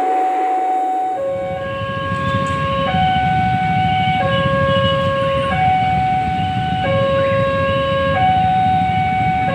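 Railway level-crossing warning alarm sounding two electronic tones, low and high, alternating about every second and a half, warning that a train is approaching the crossing.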